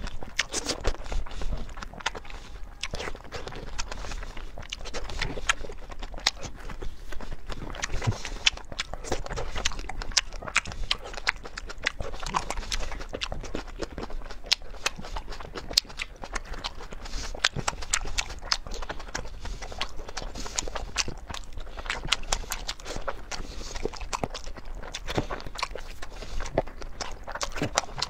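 Close-miked eating: a person biting and chewing strawberries, cherry tomatoes and fried cubes, with wet mouth sounds and many irregular sharp clicks and smacks.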